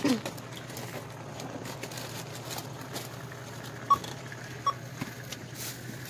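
Two short electronic beeps from a store checkout, a little under a second apart, over a steady low hum; a brief low sound comes right at the start.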